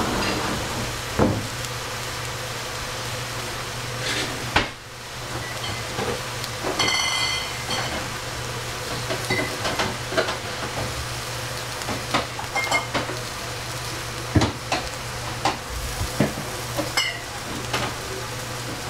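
Vegetables sizzling as they stir-fry in oil in a pan, with a spatula scraping and knocking against the pan now and then, over a steady low hum. A brief high ringing sounds about seven seconds in.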